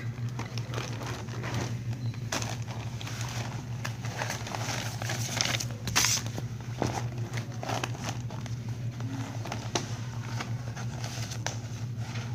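Rustling and scraping of clothing and hands handling a phone close to its microphone, with scattered clicks over a steady low hum.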